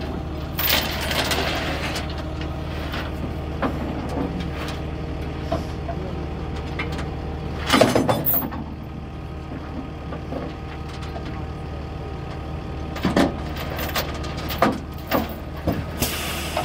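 Idling engine of a rollback tow truck giving a steady low hum, while a steel tie-down chain clanks and rattles against the truck bed as it is hooked and pulled tight over the car's front wheel. The chain clatters several times, loudest about eight seconds in, with a run of quicker clanks near the end.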